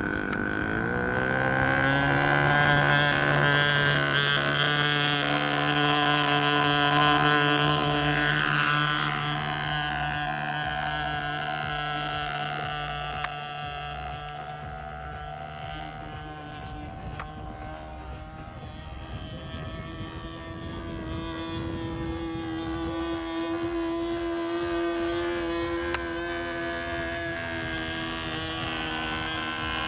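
Radio-controlled model Cessna 182's motor running at high throttle as the plane takes off and flies overhead. The pitch rises over the first couple of seconds, is loudest for the next several seconds, then shifts and wavers as the plane changes course, with some wind on the microphone.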